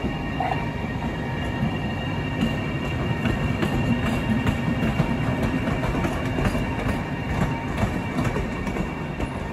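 A train running on the rails: a steady low rumble with faint scattered clicks and a few thin, steady high tones above it.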